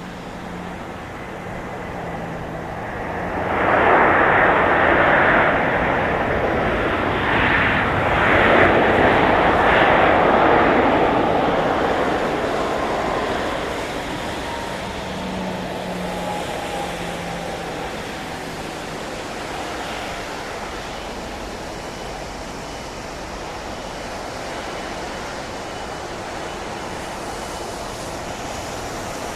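Boeing 737-700's CFM56-7B jet engines passing close on landing: a loud rush of jet noise builds a few seconds in and holds for several seconds, then fades slowly with a faint falling whine.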